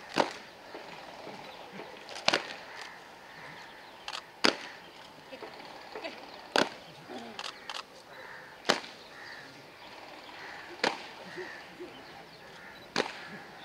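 Sharp claps or knocks repeated evenly, about every two seconds, with fainter clicks in between.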